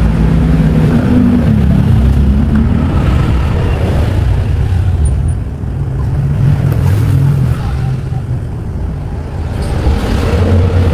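Engine running steadily with a low drone.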